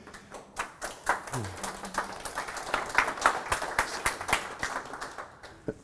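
A small audience applauding, many separate hand claps that thin out and stop near the end.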